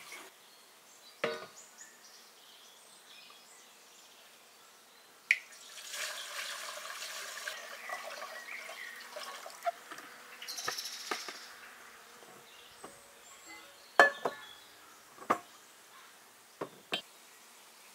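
Handling sounds: a few scattered sharp clicks and knocks, the loudest about fourteen seconds in, and two short spells of rushing, liquid-like noise around six and ten seconds in.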